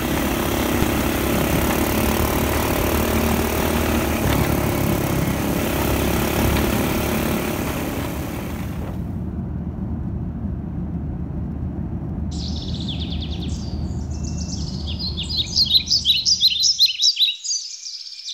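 Steady engine and road noise from riding in an open-sided vehicle; it turns muffled after about nine seconds and fades out. From about twelve seconds, a bird chirps in quick repeated notes, loudest near the end.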